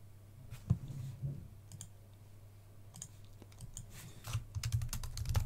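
A few scattered computer mouse clicks, then a quick run of keyboard keystrokes near the end as a short name is typed.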